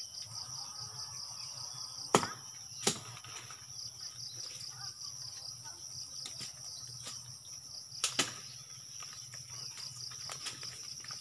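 High, steady insect chirring with a fast pulse, and a few sharp knocks: two loud ones about two and three seconds in, and a quick pair around eight seconds.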